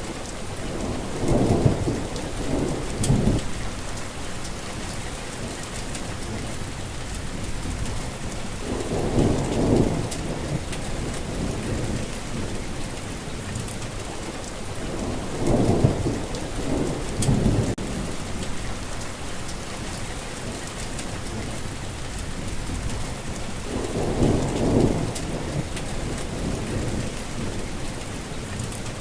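Heavy rain falling steadily, with four low rumbles of thunder through it, each lasting a second or two and coming about every seven or eight seconds.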